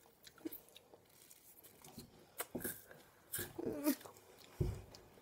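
Quiet, scattered mouth noises of sucking on frozen ice lollies: soft wet clicks and smacks. There is a brief wavering hum about three and a half seconds in and a dull thump near the end.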